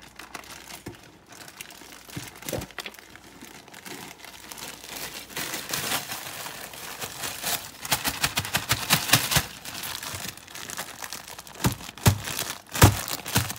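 Plastic bag of frozen mixed vegetables crinkling as it is shaken out, with the frozen corn, peas and carrots clattering into a crock pot in quick clicks. The clatter is busiest about halfway through and again near the end, where a few louder knocks stand out.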